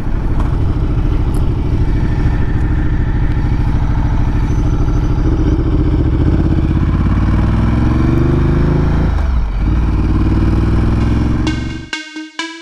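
Adventure motorcycle engine running on the move, its pitch climbing as it accelerates through the second half, with a brief dip about three quarters of the way in. It cuts off near the end, where electronic music with a steady beat begins.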